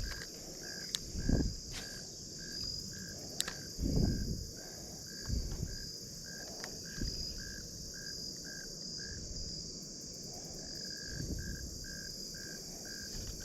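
Insects chirring steadily, with a short repeated chirp about three times a second. A few low thumps sound at intervals.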